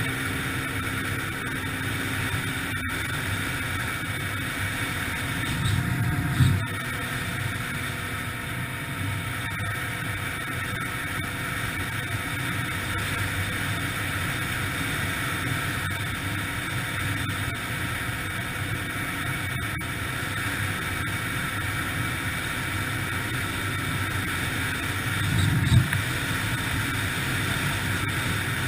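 2003 Yamaha TT-R125LE dirt bike's small single-cylinder four-stroke engine running steadily while being ridden, with wind on the microphone. The engine briefly gets louder twice, about six seconds in and near the end.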